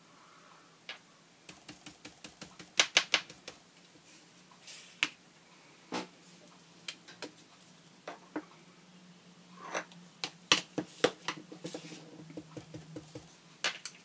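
Quick taps of a flat paint brush dabbing acrylic paint through a plastic stencil onto a board-book page, in two runs of rapid taps, the first about two seconds in and the second from about ten seconds in, with a few single knocks between as the stencil and page are handled.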